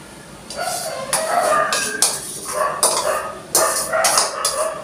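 A run of animal calls, one after another, starting about half a second in.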